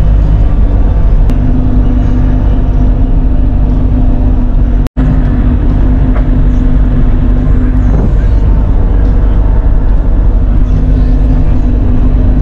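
Bobcat E42 mini excavator's diesel engine running steadily at working speed, heard from inside the cab. A steady whine sets in about a second in, drops away about eight seconds in and comes back near the end, as the boom and bucket are worked. There is a split-second break in the sound about five seconds in.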